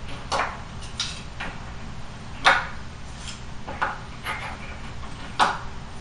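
Number cards being hung onto the pegs of a pegboard and handled, making a series of short taps and clacks, about eight in all, the loudest about two and a half seconds in and near the end.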